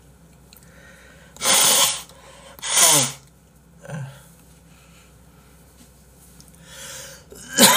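Man blowing his nose hard into a tissue: two loud blasts about a second apart, the second with a falling honk, then a short, quieter one, and another loud blow starting near the end.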